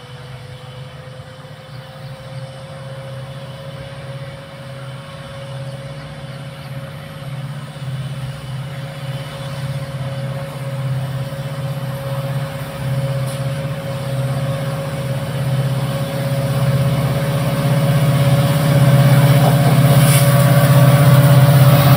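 Twin EMD WDG-4 diesel locomotives, V16 two-stroke engines, running under power with a low drone and a steady whine above it. The sound grows steadily louder as they approach.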